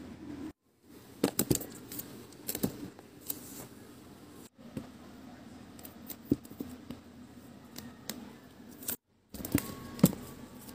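Album boxes being handled and slotted onto a shelf: irregular sharp taps, clicks and knocks of card album cases against each other and the shelf. The sound drops out completely three times for a moment.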